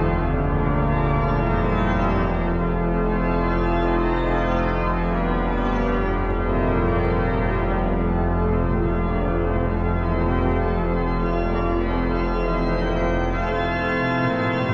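Pipe organ playing full sustained chords over a held deep pedal note. The pedal note drops out near the end.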